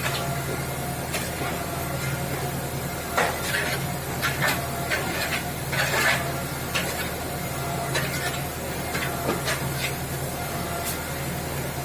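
A machine's motor running steadily at one pitch, with scattered knocks and scrapes over it.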